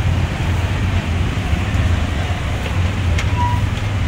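Busy street ambience: a steady low rumble of traffic with voices underneath, a few faint clicks and a brief high tone about three seconds in.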